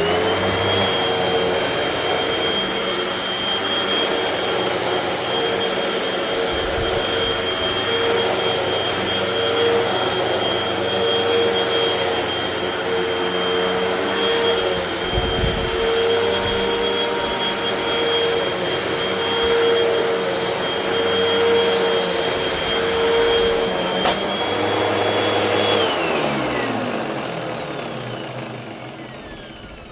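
Hoover WindTunnel PAWS upright vacuum switched on and spinning up, then running steadily with a high tone over a rushing air noise. Its brush roll bearings are worn, which makes it noisy. Near the end it is switched off and winds down, the pitch falling away.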